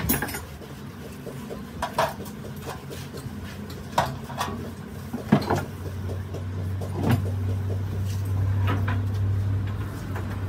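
Scattered sharp metal clanks and knocks of hand work on heavy parts, several over ten seconds, over a low background rumble; a steady low hum sets in about six seconds in and keeps going.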